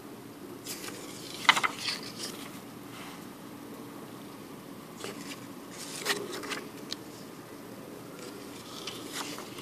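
Paper banknotes, Sri Lankan rupee notes, rustling and crinkling as they are handled and turned over by hand. This comes in short spells about a second in, again around five to seven seconds in, and briefly near the end, over a faint steady hum.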